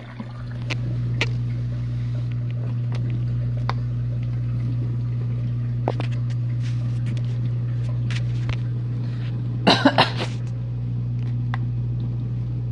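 Whirlpool dishwasher's pump motor starting up and humming steadily, with scattered light clicks, between the main wash and its drain. About ten seconds in comes a short burst of three rough sounds, like a cough.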